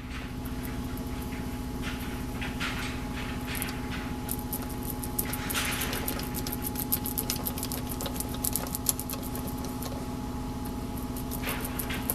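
Hand tire stitcher rolled over a tire repair unit on the inner liner, its toothed wheel making rapid, fine ticking, with a few louder scrapes as it is worked from the center outward to press the repair down. A steady hum runs underneath.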